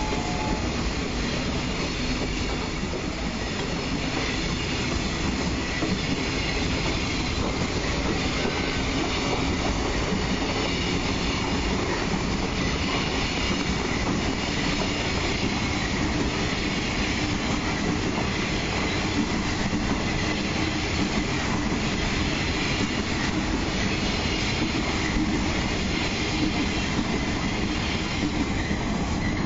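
A freight train's wagons passing close by at speed: a steady, unbroken running noise of steel wheels on the rails that holds at the same level throughout.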